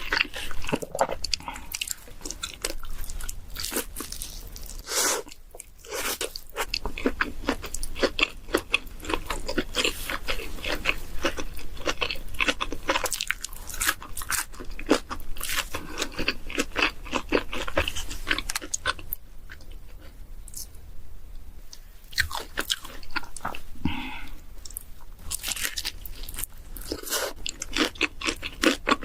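Close-miked mouth sounds of someone eating pizza: biting and chewing, with crisp crunching and wet clicks that keep up irregularly, easing off for a few seconds a little past the middle.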